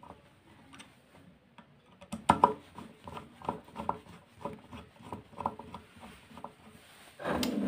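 Screwdriver tightening the screws of a vacuum cleaner motor's carbon-brush holder: a run of small metal clicks and scrapes, about two a second, starting about two seconds in, the sharpest pair right at the start of the run.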